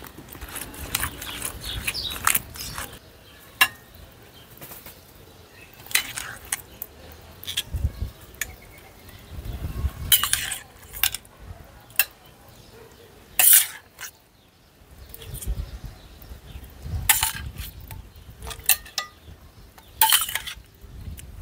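Metal spoon clinking and scraping against a pan and plate while seafood risotto is dished up, with scattered sharp clinks and a few duller knocks.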